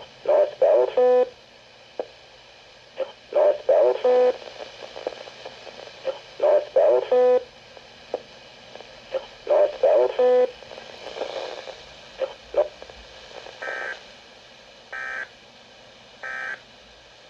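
Weather radio alert signalling tones, heard before an emergency bulletin: four repeated bursts of buzzy electronic data tones about three seconds apart, each ending in a short steady tone, then three short higher beeps about a second and a half apart.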